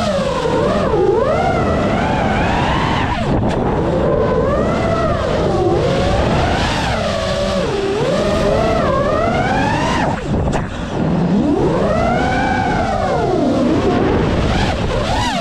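FPV drone's brushless motors whining, the pitch rising and falling constantly with the throttle, briefly dropping away about 3 seconds and 10 seconds in as the throttle is cut.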